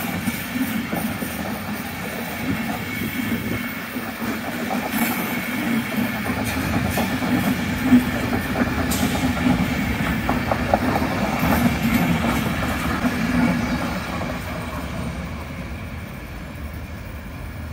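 Intercity coaches rolling past on the rails, with the wheels clicking over the rail joints. The sound fades as the end of the train moves away near the end.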